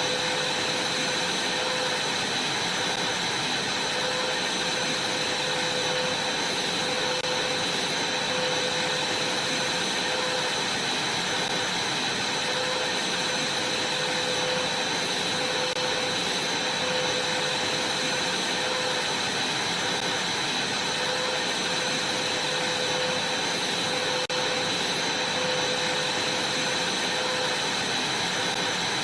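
Vacuum cleaner running steadily: a continuous rushing hiss with a steady high whine and a lower hum that wavers slightly. It dips for a moment about 24 seconds in.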